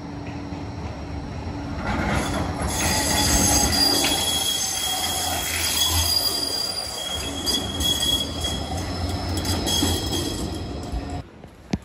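Gold Coast light-rail tram (Bombardier Flexity 2) passing close by. Its running noise builds over the first few seconds and carries several high, steady whining tones. The sound cuts off abruptly near the end.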